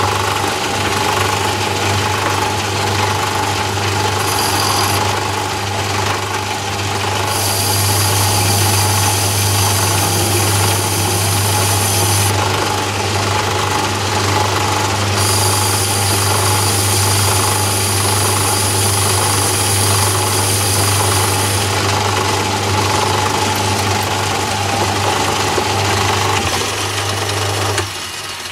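Myford ML7 lathe running with a steady motor and drive hum while taking a light skim cut along a test bar, made to check for a turning taper after adjusting the bed. A high hiss comes and goes twice in the middle, and the lathe is switched off and runs down near the end.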